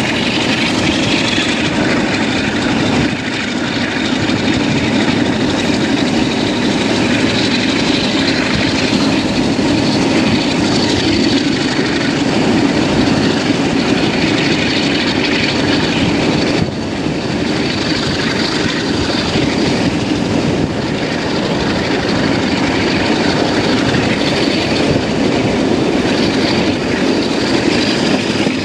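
Passenger train hauled by Class 47 diesel locomotives running along the line, heard from an open coach window: a steady rumble of wheels on rail and rushing air, with a thin high whine that rises slowly in pitch.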